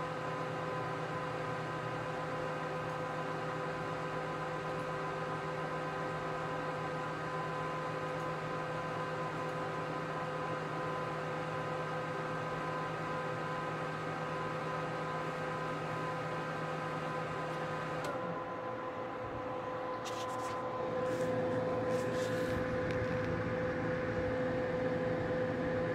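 Graphics card cooling fans, one of them a replacement MSI 87 mm ball-bearing fan, running with a steady whir and a whine of several tones. Past the middle the whine drops away, and shortly after the whir grows louder, with a few faint clicks, as the fans are set to full speed.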